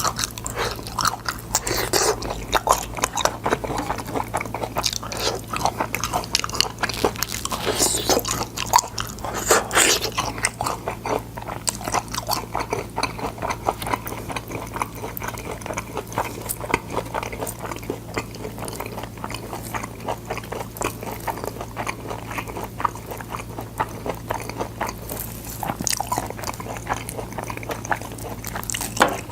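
Close-miked chewing and biting of boiled sword beans: a dense, irregular run of short crunches and mouth clicks, over a steady low hum.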